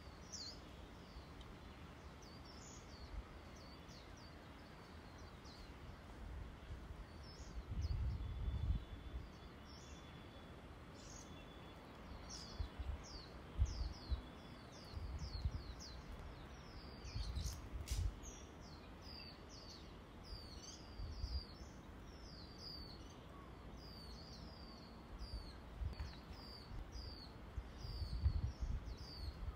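Small birds chirping over and over in short, high, falling notes, more often in the second half. Gusts of wind rumble on the microphone now and then, and there is one sharp click about two-thirds of the way in.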